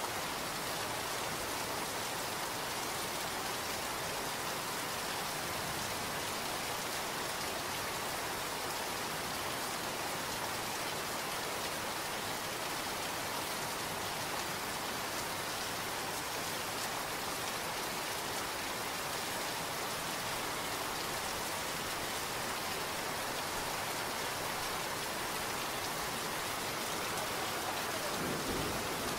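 Steady rain falling, an even hiss of many drops without a break.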